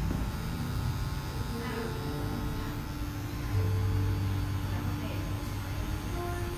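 Electric hair clipper buzzing steadily as it cuts hair at the nape, blending a skin fade. The hum gets louder about three and a half seconds in.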